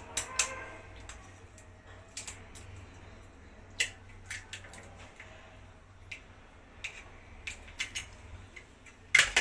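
A knife blade tapping eggshells to crack eggs open: scattered sharp clicks a second or so apart, with a louder cluster of knocks near the end.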